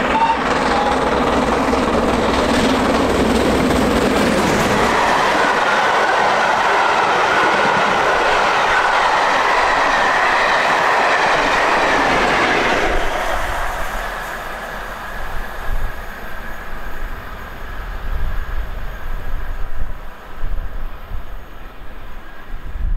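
GWR Castle Class four-cylinder 4-6-0 steam locomotive passing close by at speed, working hard, followed by its train of coaches rolling past with wheels clattering and squealing on the rails. About thirteen seconds in, once the Class 47 diesel on the rear has gone by, the sound drops sharply and fades away.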